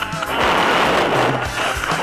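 Background music with a steady beat, with a hissing wash swelling through the middle.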